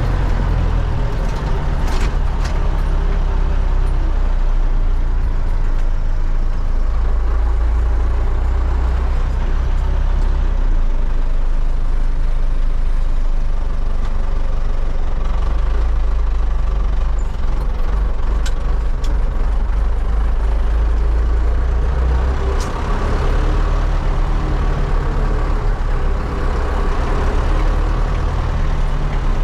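Belarus MTZ-80 tractor's D-243 four-cylinder diesel running loud and steady while driving, its low note shifting a few times. A few short clicks sound over it.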